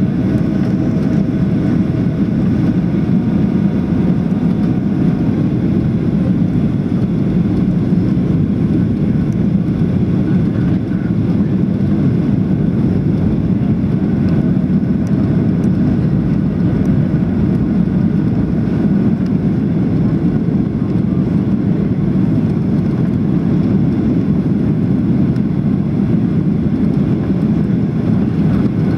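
Steady cabin noise inside a Boeing 737-700 in flight with its flaps extended: the rush of airflow and the drone of its CFM56 engines. Faint whining tones come and go over it.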